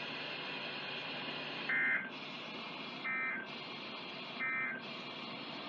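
Three short bursts of Emergency Alert System end-of-message data tones (the SAME 'NNNN' code) on NOAA Weather Radio, each a brief two-tone digital squawk, about a second and a half apart over steady radio hiss. They signal the end of the Required Weekly Test message.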